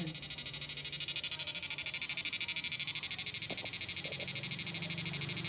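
High-pitched electronic whine from a repaired FET power unit running under a bulb load, pulsing fast and evenly over a low hum.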